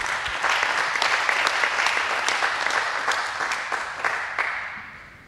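Audience applauding in a hall: a dense patter of many hands clapping that tapers off over the last second or so.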